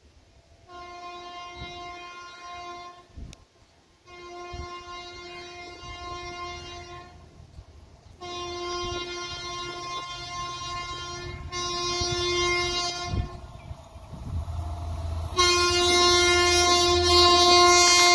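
Horn of an approaching Indian Railways electric locomotive: four long single-note blasts, each louder than the last, the third held about five seconds. The low rumble of the train grows in the last few seconds, and the horn's pitch begins to drop as the locomotive nears.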